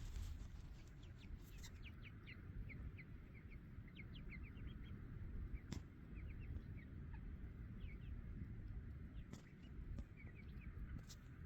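Baby poultry peeping: many short, high chirps, several a second, faint over a low background rumble. A single sharp click comes about six seconds in.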